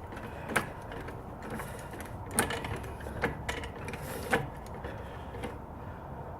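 Hydraulic floor jack being pumped to raise a car's front corner, the handle and mechanism clicking with each stroke, a handful of clicks roughly a second apart over a steady mechanical hiss.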